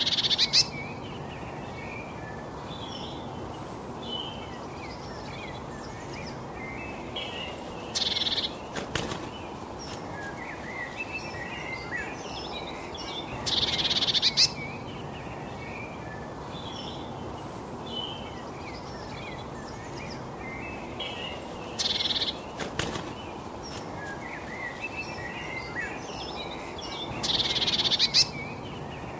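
Small songbirds chirping and twittering over a steady background hiss, with a louder rasping, buzzy burst of calls about every six to eight seconds.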